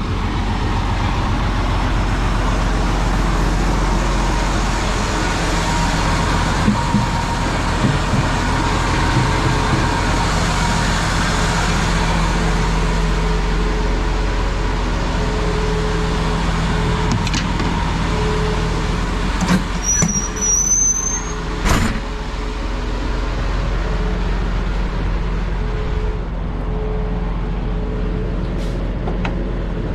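Road vehicle driving: steady engine rumble and road noise. About twenty seconds in there is a brief high rising squeal and a few sharp clicks.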